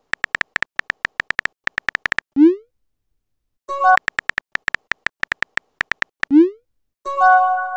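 Phone texting sound effects: two runs of rapid keyboard tap clicks as messages are typed, each followed by a short rising pop as the message sends, and a brief chime of several tones midway and again near the end.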